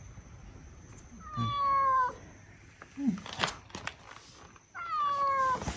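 Cat meowing twice, two drawn-out calls that slide slightly down in pitch, with a short knock between them.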